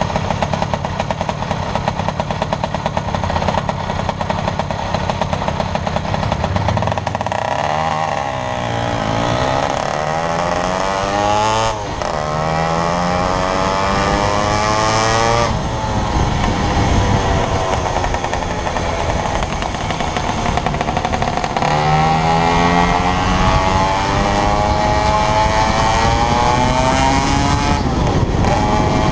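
1980 Vespa 50 Special's 49 cc two-stroke single-cylinder engine, running steadily at first, then revving up as the scooter pulls away. Its pitch climbs and drops back at each gear change, with wind noise on the microphone.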